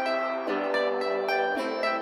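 Background music: plucked string notes in a steady rhythm.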